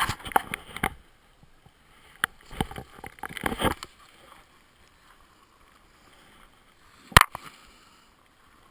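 Skis scraping and chattering over hard-packed snow in short bursts during turns, quieter while gliding between them, with one sharp knock about seven seconds in.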